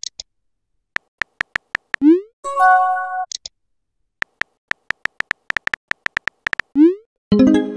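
Texting-app sound effects: runs of quick keyboard tap clicks as messages are typed. About two seconds in and again near the end, a quick rising swoosh and a short electronic chime as each message is sent.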